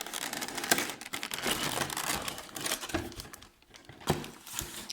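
Packaging crinkling and rustling as it is handled, with many small clicks, while a boxed figure is unpacked by hand; it eases off briefly a little past halfway.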